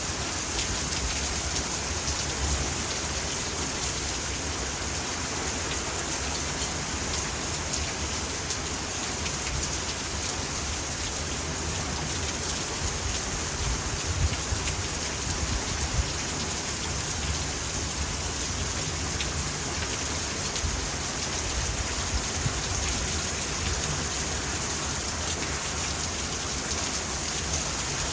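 Heavy rain pouring in a steady hiss, driven by strong gusting wind from a thunderstorm's cold-front gust front.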